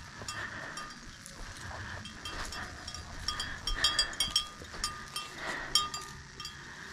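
Metal hardware on a tracking dog's harness jingling in irregular light clinks as the dog moves along sniffing, with short sniffing bursts over a low steady hum.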